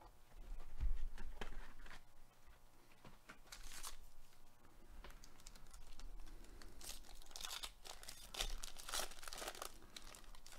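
Foil wrapper of a 2021 Panini Mosaic baseball card pack being torn open and crinkled by hand: a run of irregular rustles and crackles, busiest in the second half.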